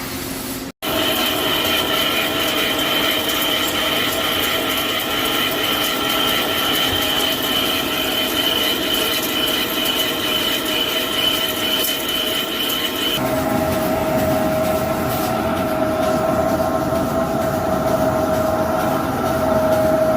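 CNC lathe machining with a steady high-pitched whine of several held tones over a noisy hiss. The sound cuts out completely for an instant just under a second in. About 13 s in, the highest tone stops and a lower tone grows stronger.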